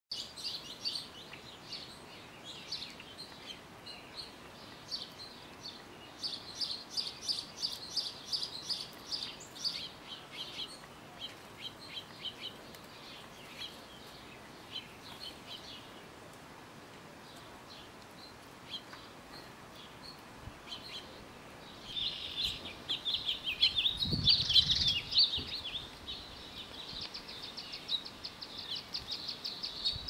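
Small songbirds chirping and twittering in bursts of quick high notes, busiest about six to ten seconds in and again from about twenty-two seconds, ending in a fast run of ticking notes. A dull low thump comes about twenty-four seconds in.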